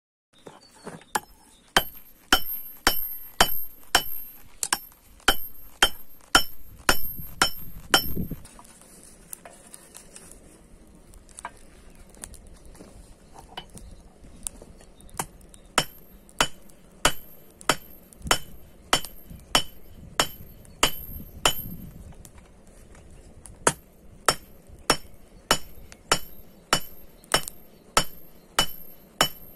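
Hand hammer striking hot 5160 leaf-spring steel on an anvil, flattening the spring into a bar, with a bright metallic ring on each blow. The blows come at just under two a second, in runs with short pauses between them.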